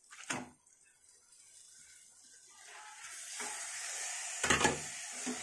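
Marinated chicken pieces going into a hot kadai of fried masala paste, a sizzle building up over several seconds as they are stirred in with a wooden spoon. A short knock comes just after the start and a louder thump about four and a half seconds in.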